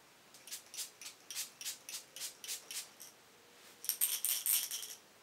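A pump bottle of Coola SPF 30 makeup setting spray shaken with a light rattle, about four shakes a second, then, about four seconds in, pumped in a quick run of fine mist sprays onto the face.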